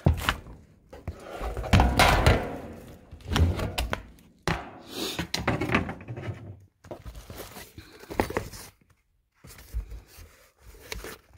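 Books being shifted and set down inside a plastic storage tote: a string of thunks and knocks mixed with rustling, loudest about two seconds in.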